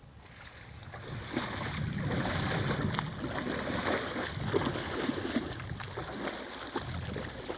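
Water splashing and sloshing as a hippo wades back into a waterhole, a rushing wash with many small splashes through it.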